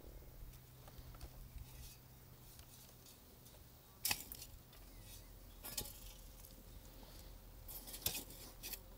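A metal hand scoop scraping and clinking against a galvanized metal bucket while digging out potting soil: a few short scrapes about four, six and eight seconds in, over a faint low hum.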